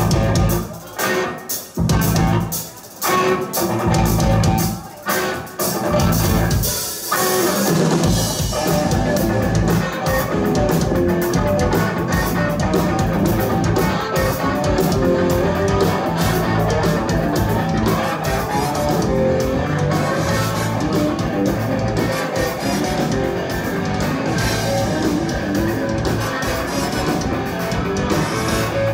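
Rock band playing with electric guitar and drums. The first few seconds come in short, broken stretches with gaps; after that the music runs on without a break.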